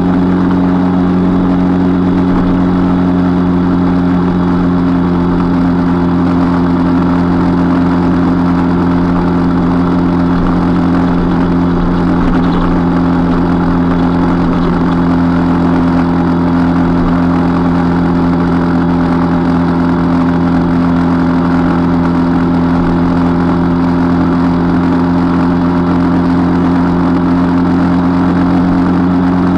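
Motorcycle engine droning steadily at a constant cruising speed, with a dense rush of wind and road noise over it.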